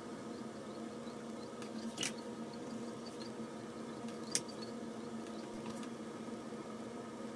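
Faint scratching and dabbing of a small watercolour brush on cold-press paper over a steady low hum, with two sharp clicks about two and four and a half seconds in.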